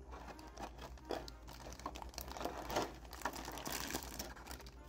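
Clear plastic bag crinkling as hands handle and unwrap figure parts packed inside it: an irregular run of small crackles.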